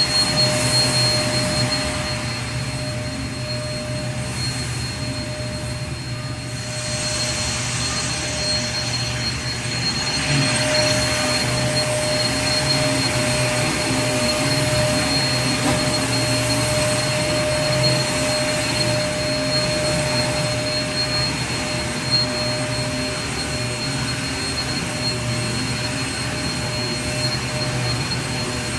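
Vacuum cleaner running steadily: the motor's whine with a steady high tone over a rushing air hiss. The hiss changes slightly about six seconds in.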